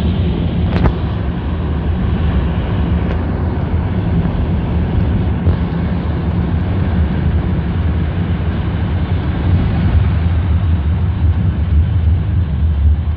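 Traffic on a wet road: a steady low rumble with a hiss of tyres on the wet surface.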